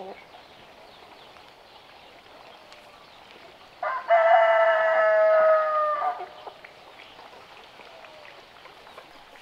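A rooster crows once, a single long crow starting about four seconds in and lasting some two seconds, its pitch sliding down at the end, over a faint steady background noise.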